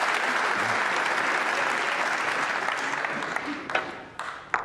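Arena audience applauding a potted snooker shot, dying away near the end. A few sharp clicks follow in the last second.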